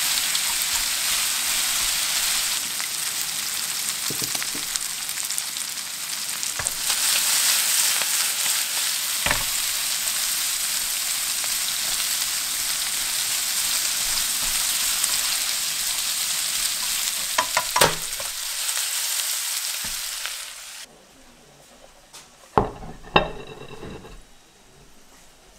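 Lamb and green onion pieces sizzling steadily in a nonstick frying pan as they are stir-fried with chopsticks, with an occasional click of the chopsticks against the pan. About 21 seconds in the sizzling cuts off, and a few ceramic clinks of a bowl on a plate follow.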